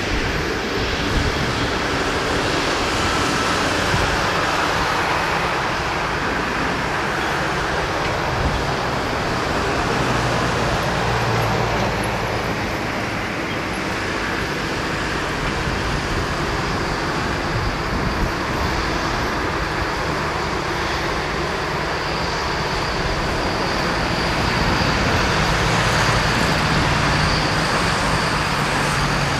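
Boeing 777-300's Rolls-Royce Trent jet engines running at taxi power: a steady jet rumble and hiss, with a faint high whine growing in the second half.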